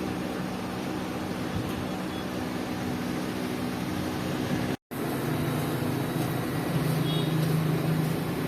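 A machine runs with a steady mechanical hum. It cuts out for an instant just past halfway, then carries on deeper and a little louder.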